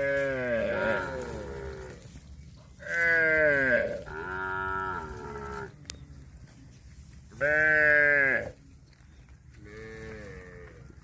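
Cattle mooing: a call trailing off just after the start, then four more drawn-out moos, several falling in pitch, the last one fainter.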